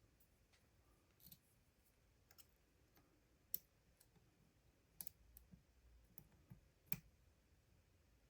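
Faint, scattered metallic clicks of a lock pick and turning tool working the pins of a padlock. The sharpest clicks come about three and a half and seven seconds in.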